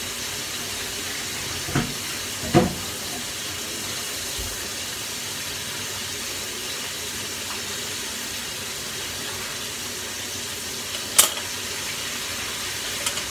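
Steady sizzle of oil frying in a pan on the stove. Sharp knocks cut through it twice about two seconds in and once more near the end.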